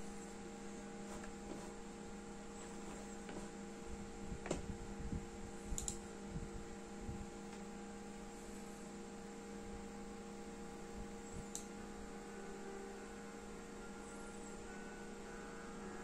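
A small speaker driven by a USB-powered amplifier board, giving out a steady electrical hum of several held tones while no audio plays through it. A few light knocks and clicks come between about four and seven seconds in, and once more near twelve seconds.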